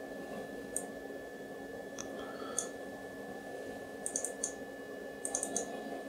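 Computer mouse buttons clicking as windows are moved and settings applied in a desktop interface: a few single sharp clicks early, then quick clusters of three or four near the end. A steady faint hum runs underneath.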